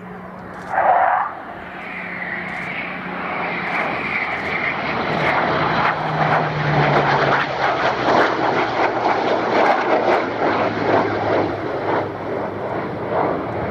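A Supermarine Spitfire's piston engine and a Eurofighter Typhoon's jets sounding together as the pair fly past in close formation. The noise grows louder and the low engine note falls in pitch as they go by. A brief louder sound comes about a second in.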